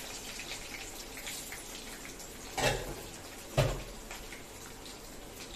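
Chopped onion and green chilli frying in hot oil in a kadai, a steady crackling sizzle. Two dull thuds about two and a half and three and a half seconds in.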